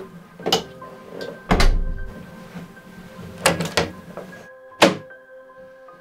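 A series of sharp door knocks and thuds, about five, the loudest a deep thump about a second and a half in, over soft background music with sustained tones.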